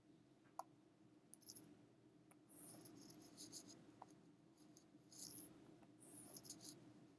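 Faint scratching of a stylus stroking across a drawing tablet, in several short strokes, over a low steady room hum.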